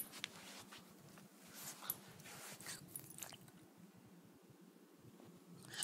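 Faint sounds of a Boston Terrier puppy at play: a few short, soft noises, mostly in the first half, with quiet between them over a low steady hum.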